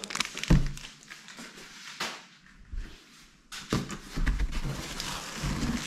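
Groceries being handled in a cardboard box: packaging rustling and items knocking against the cardboard, with a knock about half a second in, a quieter stretch in the middle, and busier rustling over the last two seconds.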